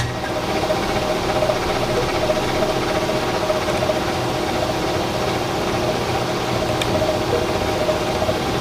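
Milling machine running steadily under a cut, gang-milling a pair of vise jaws: a constant mechanical drone with a steady whine over it and a sharp click at the very start.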